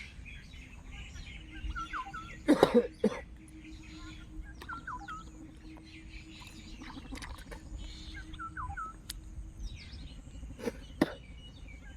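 A bird repeats a short three-note call about every three seconds over a rural background hum. About two and a half seconds in there is a single loud, sudden burst of sound, and a smaller one comes near the end.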